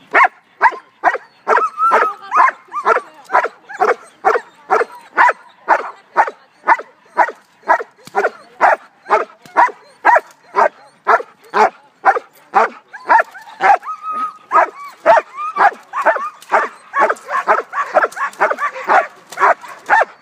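A dog barking rapidly and without a break, about two or three sharp barks a second.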